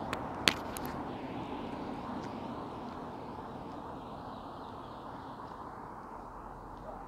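Steady hum of road traffic on a busy street, with one sharp click about half a second in.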